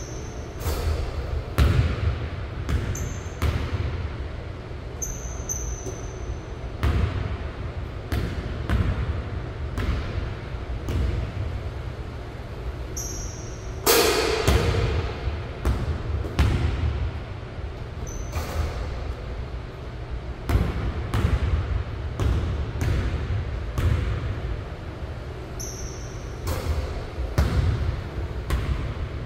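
Basketball bouncing on a hardwood gym floor and hitting the rim and backboard during a solo shooting drill, heard as a string of separate thuds and knocks that echo in the large gym. Short sneaker squeaks come in here and there. The loudest sound is a hard hit with ringing about halfway through.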